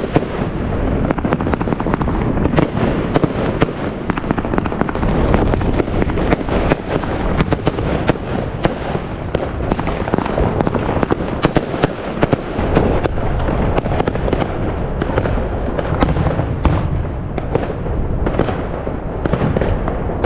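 Aerial firework shells bursting in a dense, unbroken barrage, many sharp bangs and crackles overlapping over a continuous low rumble.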